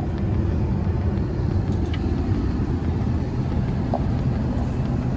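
Steady low rumble of an airliner cabin in flight: engine and airflow noise, with a couple of faint small ticks.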